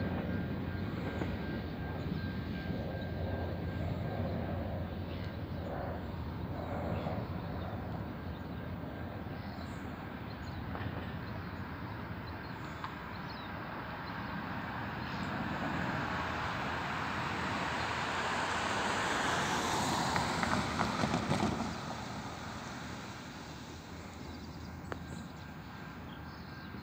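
Airliner flying over: a wide rushing engine noise that builds slowly for about twenty seconds, peaks, then falls away quickly, over a steady low rumble.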